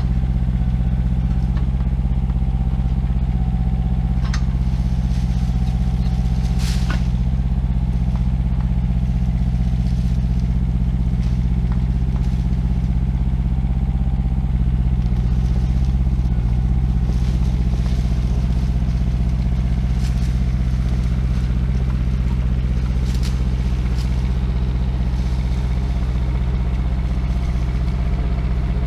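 IHI 9VX-3 mini excavator's small diesel engine running steadily at working speed, with a few sharp clanks from the machine as it works.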